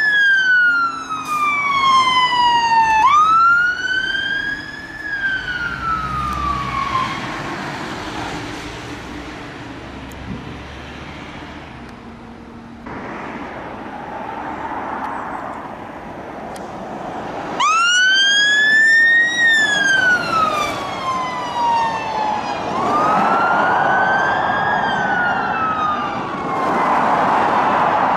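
Fire engines' electronic wail sirens, each wail rising and falling over about three seconds. They fade out about seven seconds in, leaving passing traffic, then start again loud at about eighteen seconds and keep wailing to the end.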